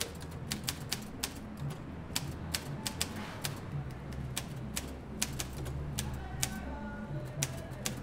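Keys of a Triumph manual typewriter striking one at a time in an irregular, unhurried rhythm of sharp clacks, over soft background music.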